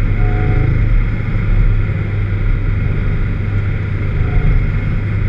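Vauxhall VX220's four-cylinder engine running at a fairly steady speed with a deep drone, in a car that has a misfire.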